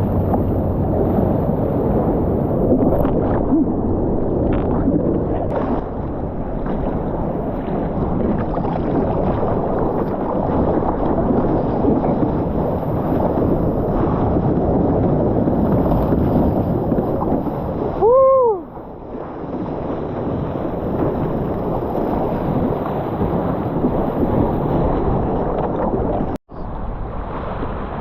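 Ocean water and wind rushing steadily over an action camera's microphone while surfing, with a muffled, dull quality. A brief squeal that rises and falls in pitch comes about two-thirds of the way in, and the sound cuts out for an instant near the end.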